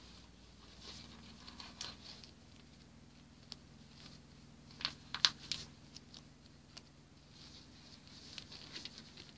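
Faint rustling and crinkling of a paper sticker sheet being handled as stickers are peeled off, with a few sharper crackles about five seconds in.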